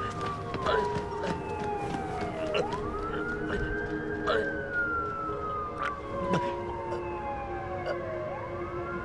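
Emergency vehicle siren wailing: each cycle sweeps up quickly, then glides slowly down, repeating about every five to six seconds.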